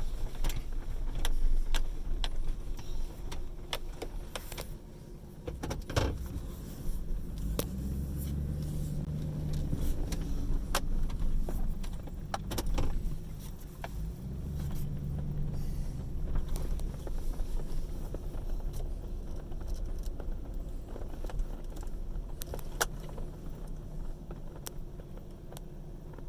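Honeybee swarm humming, a steady low drone that swells and fades, with many sharp ticks scattered through it.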